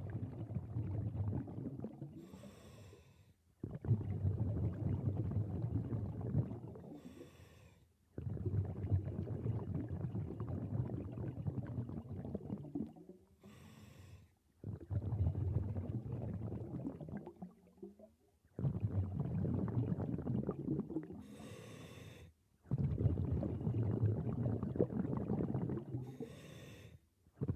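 Scuba diver breathing through a regulator underwater: a short hissing inhale, then a long burble of exhaust bubbles lasting several seconds, about five breaths in all.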